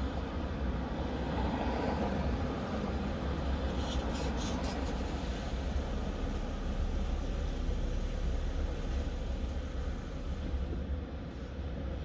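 Steady low rumble heard from inside a car stopped at a fuel pump, with a few faint clicks about four seconds in.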